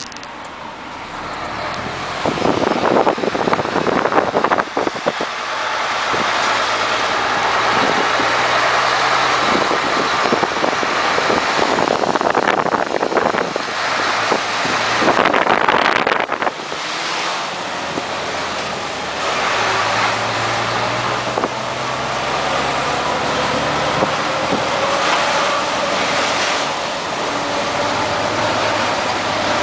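Inside the cab of a Mercedes-Benz Actros 1848 truck: its V6 diesel engine running as it drives slowly through town, over tyre and road noise. Louder rushes of noise come a few seconds in and again around the middle, and the engine's pitch rises gently near the end as it pulls away.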